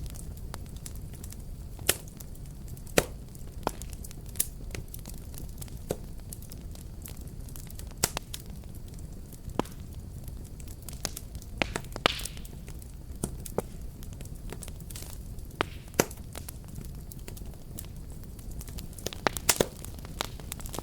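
Fireplace fire burning with a steady low rumble and irregular sharp crackles and pops. A brief hiss comes about twelve seconds in, and a quick run of pops comes near the end.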